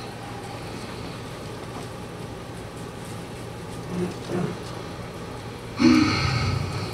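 Steady low hum of room noise in a church sanctuary during a pause, with two faint, short voice sounds about four seconds in and a brief, louder voice near the end.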